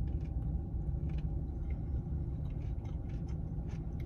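Steady low rumble and hum inside a parked car's cabin, with faint clicking mouth sounds of someone chewing a bite of quiche.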